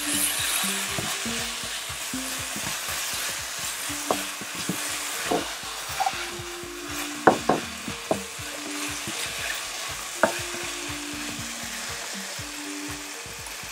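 Sliced peppers, onions, carrots and tomatoes with chili paste sizzling in a hot non-stick pan as a plastic spatula stirs them. There is a steady frying hiss, broken by a few sharp clicks where the spatula knocks the pan.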